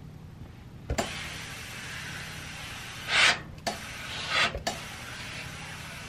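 Steam iron pressing fabric to fuse it: a click about a second in, then a steady steam hiss with two louder bursts of steam a little over a second apart, each cut off sharply.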